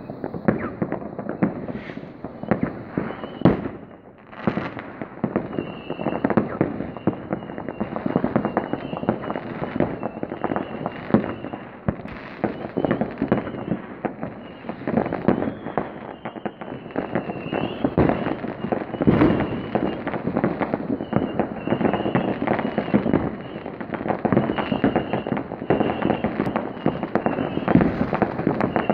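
New Year's Eve fireworks going off in a continuous barrage: rockets and firecrackers banging and crackling in dense, overlapping volleys. A thin high tone comes and goes through it from about five seconds in.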